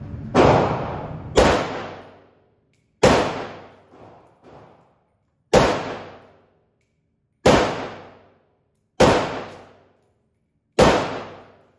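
Rifle shots of 7.62x39mm rounds fired at a body armor plate, each crack ringing on and dying away in the hall of an indoor range. The shots come singly, one to two seconds apart.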